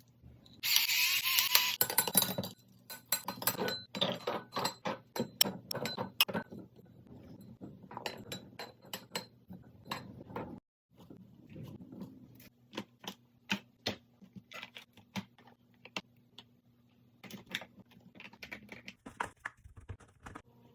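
Home meal-prep kitchen sounds: a loud rushing hiss about a second in, then a long run of irregular taps and clicks of utensils, dishes and containers, over a faint steady hum.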